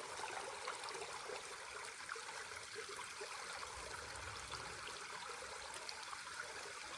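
Small stream or creek water running steadily, with a few faint ticks.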